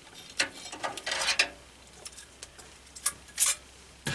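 Short plastic clicks and knocks of desktop RAM slot latches being pushed open and old DDR3 memory sticks being pulled out of the motherboard: a cluster of clicks about a second in and a few more near the end.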